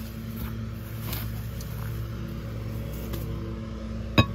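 Steady low drone of a lawn mower engine running in the background, with faint rustling of tinsel garland. Near the end, a single sharp knock as a ceramic mug is handled.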